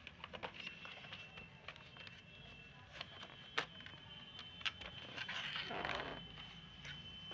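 Light clicks and knocks from an old laptop and the camera being handled, with a short rustle about five seconds in, over a faint steady high tone.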